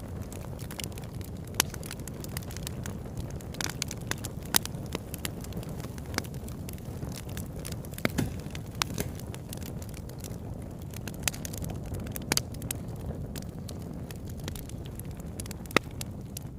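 A fire crackling, with irregular sharp pops over a steady low rumble.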